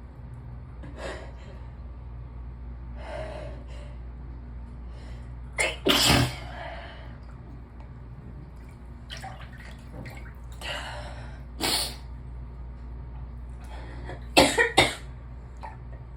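A person sneezing several times. The loudest comes about six seconds in and a quick run of three near the end, with audible in-breaths between the sneezes.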